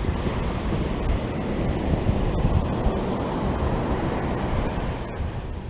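Wind buffeting the microphone over the steady wash of ocean surf breaking on the beach.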